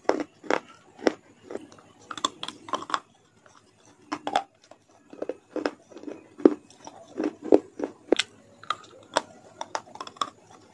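Close-miked chewing of raw leafy greens: irregular wet crunches and bites with small mouth noises, easing off briefly a few seconds in before the crunching picks up again.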